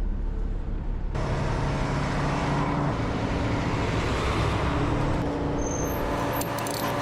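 Heavy vehicle engine running steadily. About a second in, a broader rush of road or engine noise joins it.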